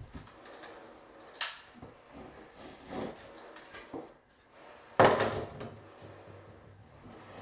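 Glass mineral wool insulation being handled and tucked between floor joists, with a few light knocks. About five seconds in comes a loud clatter as a utility knife is put down on a wooden floorboard.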